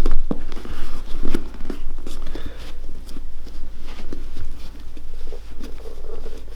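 Irregular soft clicks, knocks and rustles of hands handling and pressing a shoe during a super-glue repair.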